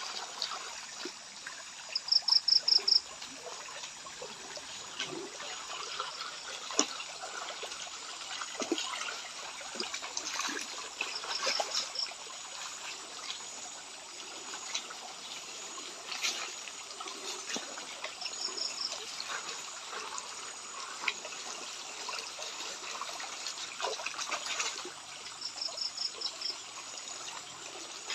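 Water trickling and sloshing with scattered small knocks as gold is panned by hand in a shallow stream. Over it, a high rapid chirp of five or six pulses in about a second repeats four times, roughly seven seconds apart; the first is the loudest sound.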